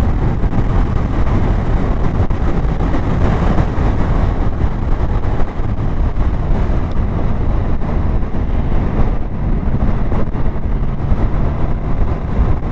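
Motorcycle being ridden, its engine running steadily under continuous wind and road rush.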